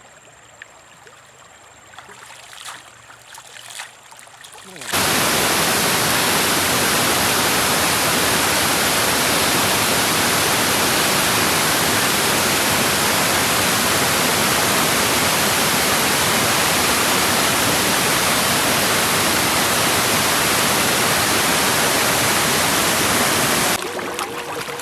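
Rushing water, a loud, even, steady rush that cuts in abruptly about five seconds in and stops abruptly shortly before the end. Before it, a faint stretch with a few soft clicks.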